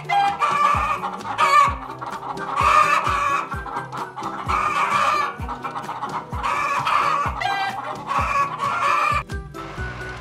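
Hens clucking in repeated bursts over background music with a steady beat; the clucking stops shortly before the end.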